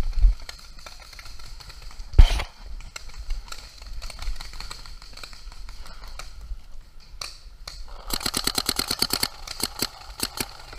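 Paintball marker firing a rapid string of shots, roughly fifteen a second for just over a second, then a few more scattered shots. A single loud knock comes about two seconds in.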